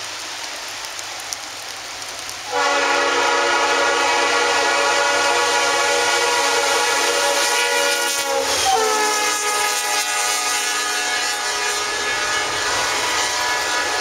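Leslie RS3L five-chime horn on a GE C40-8W diesel locomotive: one long blast starts suddenly about two and a half seconds in, drops in pitch about six seconds later as the locomotive passes (Doppler effect), then fades. The train's rumble and wheel clatter run beneath it.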